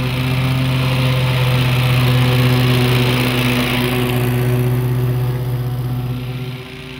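Wright Stander X stand-on mower's Kawasaki engine running steadily with a strong low hum while the mower is ridden. The sound eases off about six and a half seconds in.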